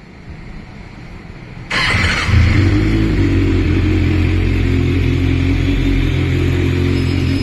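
Kawasaki Ninja ZX6R inline-four with an IXIL aftermarket exhaust starts up, catching suddenly a little under two seconds in, then runs steadily with a raspy exhaust note.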